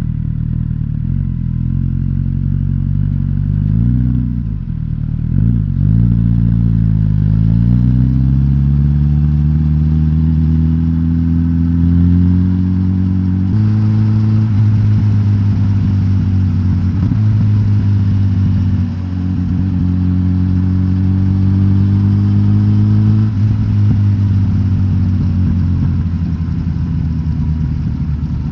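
Suzuki GSX-S1000GT's inline-four engine (K5-derived), running through a decatted stock exhaust. A few quick blips of the throttle come first. Then the engine pulls up through the revs with its pitch rising, and drops sharply at shifts about 13 and 23 seconds in.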